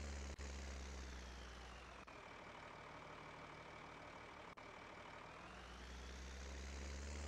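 Combine harvester engine running at a steady speed, a deep hum whose lowest part thins out for about three seconds in the middle and then comes back.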